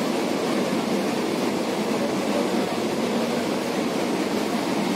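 Steady running noise inside a moving Kochi Metro train car, even and unbroken, with most of its weight in the low to middle pitches.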